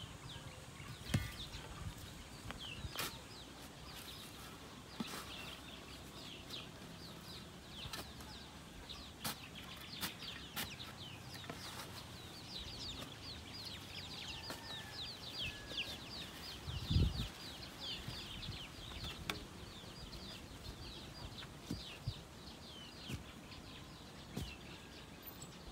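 Native chickens clucking, over a steady run of quick, high, falling chirps and a few sharp clicks. A brief low thump comes about two-thirds of the way through.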